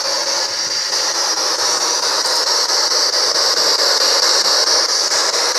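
Spirit box, a handheld radio scanner, giving out a steady hiss of radio static.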